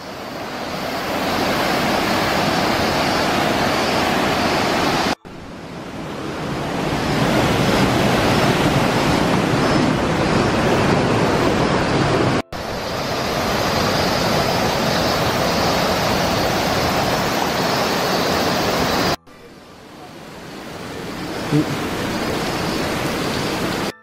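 Rushing river water pouring over rocks in a gorge, a dense steady noise running high after heavy flow. It cuts off sharply three times and swells back in, the last stretch quieter.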